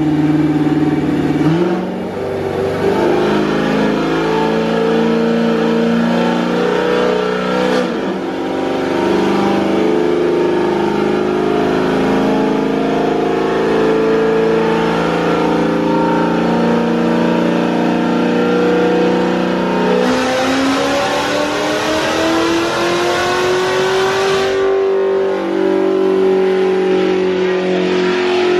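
Cammed, supercharged LT4 V8 of a C7 Corvette Z06 running on a chassis dyno: held at a steady engine speed for a long stretch, then a full-throttle dyno pull about 20 seconds in, the pitch climbing for some four seconds before the throttle is lifted and it drops off suddenly, back to a steady run.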